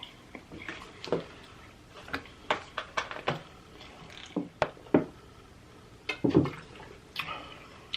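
Close-miked eating sounds: wet chewing and mouth smacks with irregular sharp clicks, and a slightly longer burst about six seconds in.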